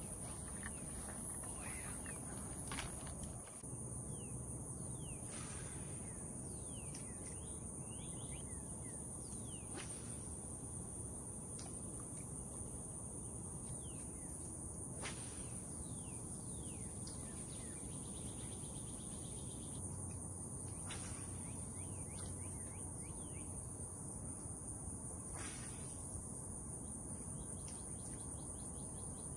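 Outdoor ambience at a pond: a steady high-pitched insect drone, with scattered bird chirps and a few faint clicks.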